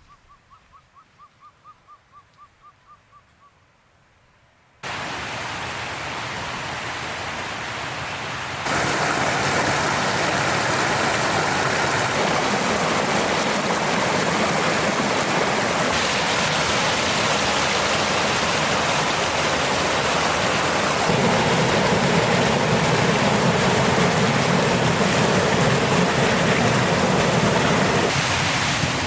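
A mountain stream tumbling over a run of small cascades: loud, steady rushing water that cuts in about five seconds in and jumps in level and tone several times after that. Before the water comes in, a quiet stretch holds a rapid series of about a dozen short piping notes from a bird or small animal.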